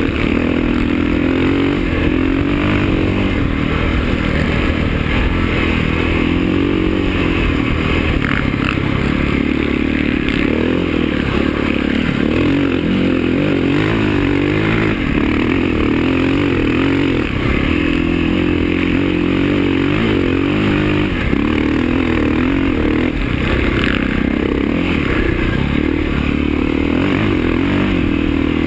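KTM single-cylinder enduro motorcycle engine running hard at speed on a dirt track, its revs rising and falling again and again as the throttle opens and closes.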